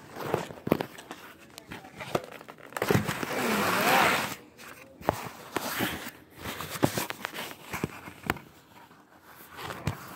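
Crunchy rustling and scraping of kinetic sand being handled in a cardboard tray, with scattered sharp clicks and knocks, and a louder scraping rush lasting about a second and a half, about three seconds in.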